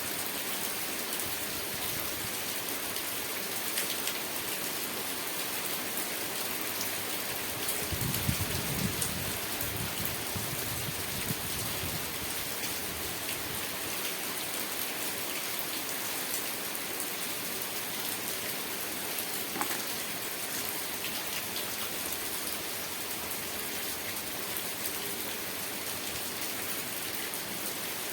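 Steady rain falling, with scattered louder drops. A brief low rumble comes about eight seconds in and fades within a few seconds.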